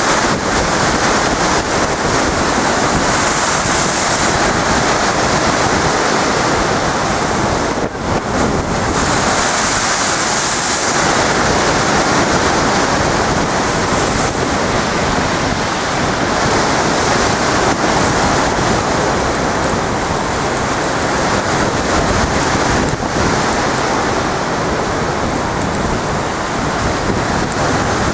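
Storm waves breaking and surging against a sea wall: a continuous loud rush of water, with louder hissing surges now and then.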